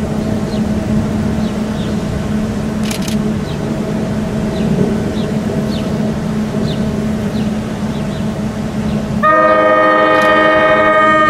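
NJ Transit commuter train approaching with a steady rumble, then its horn sounds a long, loud chord of several notes about nine seconds in.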